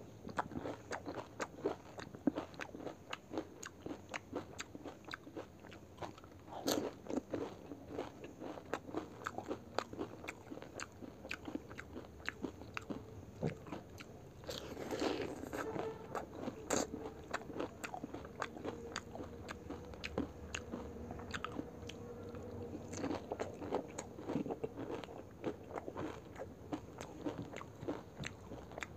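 Crisp, hollow fried pani puri shells crunching as they are bitten, with chewing in between: a dense, irregular run of crackly crunches.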